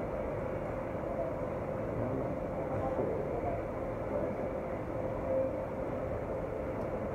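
Steady background hum and hiss of a busy indoor space, with a faint steady tone over it; no distinct event.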